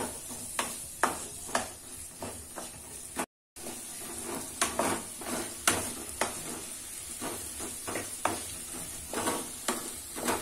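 Diced half-boiled potato and carrot frying in ghee in a non-stick kadai: a steady sizzle, with a wooden spatula scraping and tapping the pan about every half second as it stirs. The sound cuts out for a moment about a third of the way in.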